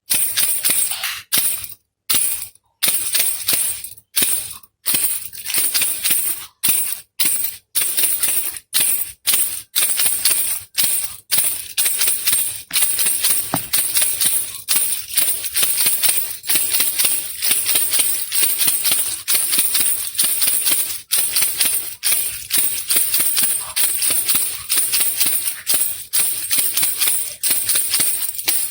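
Baby rattle (khulkhula) shaken over and over in short rattling shakes. For the first dozen seconds there are brief pauses between the shakes; after that the shaking runs almost without a break.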